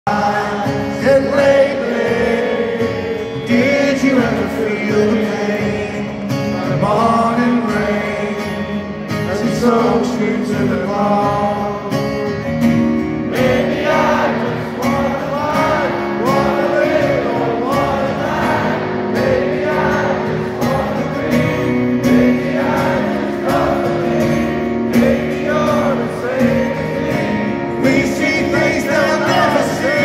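Live rock band playing with singing: guitars, drums and keyboards under a sung melody, heard from the audience with the echo of a large arena.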